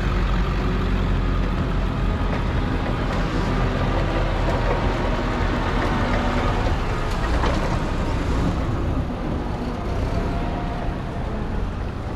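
Forklift engine running steadily as it moves a load, easing a little about nine seconds in.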